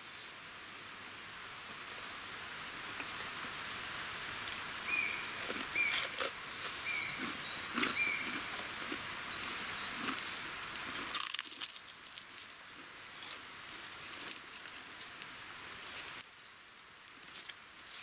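Crunchy chewing of toasted baguette close to the microphone over the steady babble of a stream, with a bird giving four short chirps a few seconds in. The stream sound fades about two-thirds of the way through, leaving quieter chewing.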